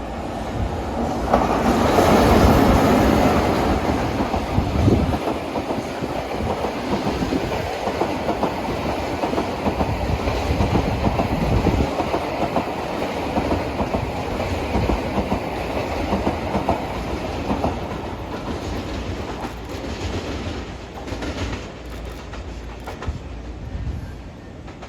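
A train of Seibu 40000 series electric railcars, hauled as an unpowered delivery train, rolling past with its wheels clattering over the rail joints. It is loudest about two to four seconds in, then runs on as a steady clatter that eases off near the end.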